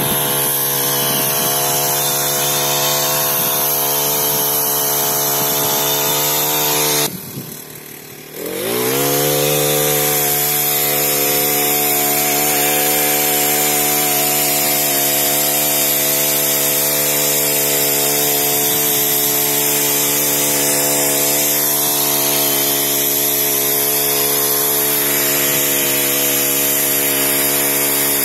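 Brush cutter fitted with a tiller attachment, its small petrol engine running steadily at high revs as the tines churn the soil. About seven seconds in the sound drops away briefly, then the engine revs back up and holds steady again.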